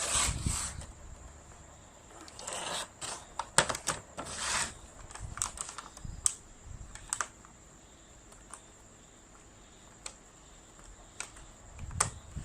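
Irregular sharp clicks and short crinkling of plastic toy packaging being cut and pulled open, with a quieter stretch after about seven seconds and a few more clicks near the end.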